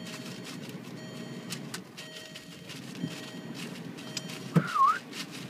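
Yorkshire terrier lapping from a fountain-drink cup: a run of quick, irregular clicks over the low, steady hum of a car. Near the end a sharp knock is followed by a brief squeak that dips and then rises in pitch.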